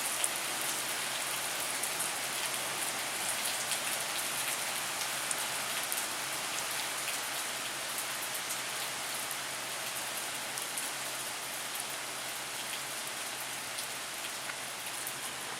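Heavy thunderstorm downpour falling steadily, with a dense hiss and scattered drop ticks, easing slightly toward the end.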